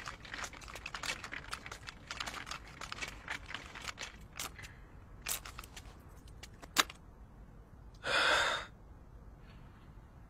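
Quiet movement and handling sounds: light clicks and rustles for the first few seconds, then a single sharp click. About eight seconds in comes one short breathy sound of about half a second, a sigh or exhale.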